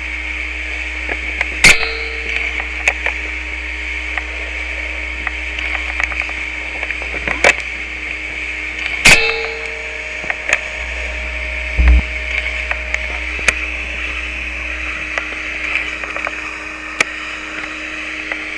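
Experimental noise music: a steady hiss with a faint low hum, broken by a few sharp, loud cracks several seconds apart and one dull thud about twelve seconds in.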